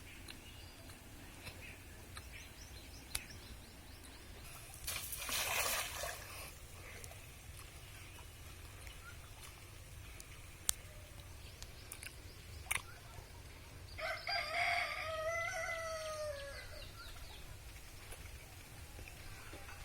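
A rooster crows once, a long call that is held and drops in pitch at the end, near the end. Earlier there is a brief rush of noise and a few sharp clicks.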